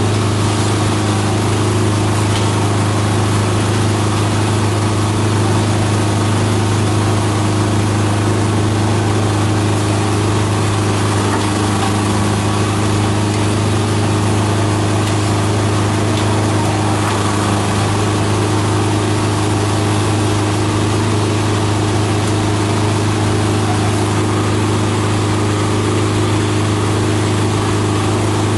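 Multi-purpose chopper-shredder machine running steadily, a constant low drone with a mechanical hum above it, while it chops green plant material.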